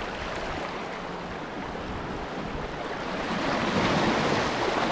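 Small waves washing over shoreline rocks, one surge swelling louder about three seconds in, with wind on the microphone.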